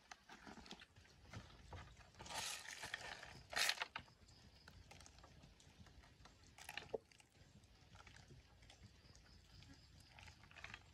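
Quiet kitchen handling: soft rustling of fresh leaves being picked from their stems, and a few knocks and rattles as a clay bowl of sea snails in their shells and a tray are moved on a slatted wooden table. The sharpest knock comes a little under four seconds in.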